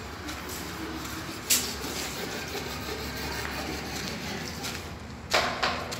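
A few sharp knocks over steady low background noise: one about a second and a half in, and two close together near the end.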